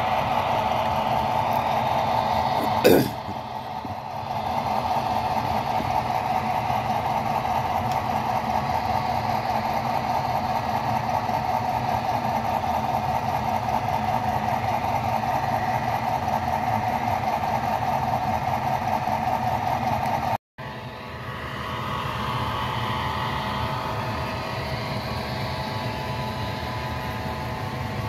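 Model freight train pulled by Pennsylvania F-unit diesel locomotives running steadily along the track, with one sharp click about three seconds in. After a brief cut about twenty seconds in, the running sound is quieter and changes as the train rolls over a steel truss bridge.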